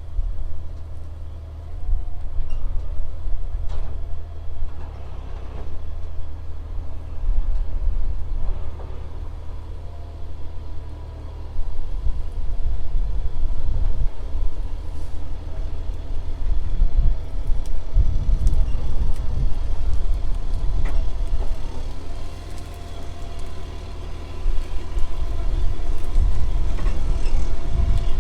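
Heavy farm machine's engine working as it scrapes and smooths dirt on a farm road: a deep, steady rumble whose loudness rises and falls several times with the load.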